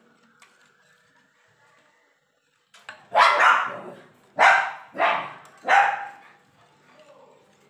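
A dog barks four times in quick succession, starting about three seconds in, each bark short and loud.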